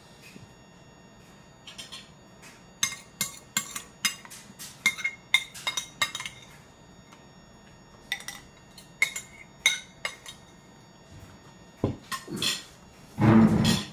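A spoon clinking and knocking irregularly in a ceramic bowl as a toddler eats, a quick run of sharp clinks with a short ring after each. Near the end a brief, loud baby vocalization.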